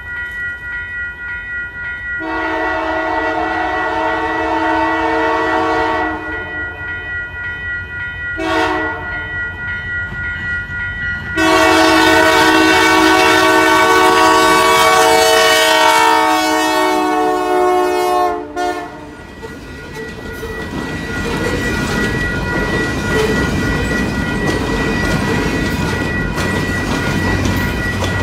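Diesel locomotive's multi-note air horn sounding the grade-crossing signal: long, long, short, then a long blast held about seven seconds, over the steady ringing of a crossing bell. After the horn the train rolls by with a rising rumble and wheels clicking over the rail joints.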